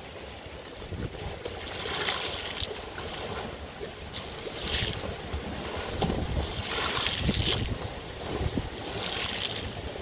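Wind-driven lake waves lapping and splashing against the shore wall and dock pilings, with a wash every two to three seconds. Wind rumbles on the microphone underneath.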